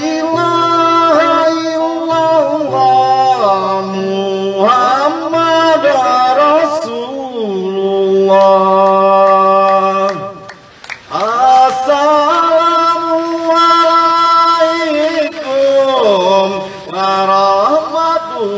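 A man chanting tadut, Basemah Islamic devotional verse, in long held notes that bend and waver. The chanting breaks off briefly about ten seconds in, then resumes.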